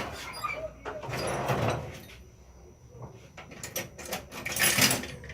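Handling noises: a sharp knock, then scraping and a few clicks, with a louder scrape near the end.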